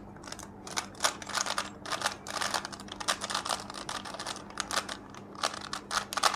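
A Rubik's cube's plastic layers being twisted by hand, giving a quick, irregular run of clicks and clacks, several a second.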